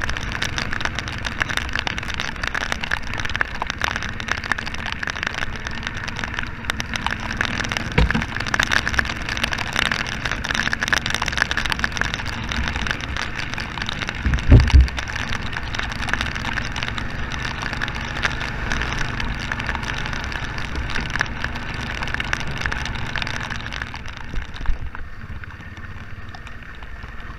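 Heavy rain pattering over a Honda Fourtrax ATV engine running steadily in mud. There is a knock about a third of the way in and a louder thump about halfway. The sound gets quieter near the end.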